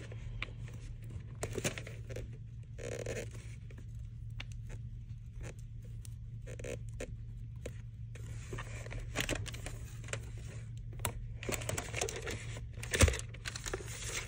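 Rustling tissue paper, with scrapes and light knocks as a hardcover journal is handled and tucked back into its box. A louder soft knock comes near the end.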